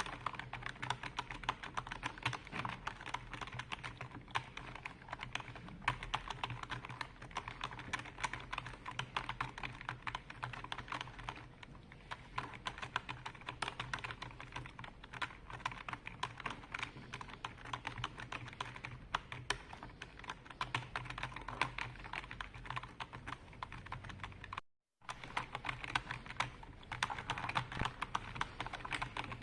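Continuous fast typing on a computer keyboard, a dense irregular stream of key clicks. The sound cuts out completely for a split second near the end.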